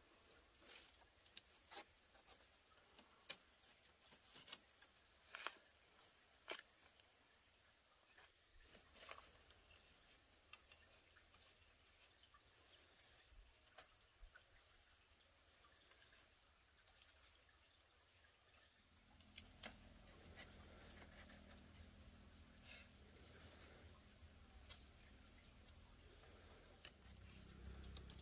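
Faint, steady, high-pitched chirring of an insect chorus, with scattered light clicks through the first several seconds.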